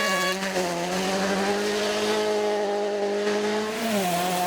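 Rally car's turbocharged four-cylinder engine held at high revs at a steady pitch, dipping briefly near the end, as on a gear change or a lift, then picking up again.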